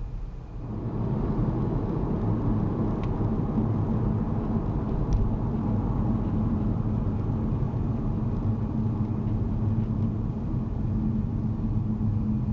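Car engine and road noise heard from inside the cabin, a steady low rumble that grows louder about a second in and then holds steady.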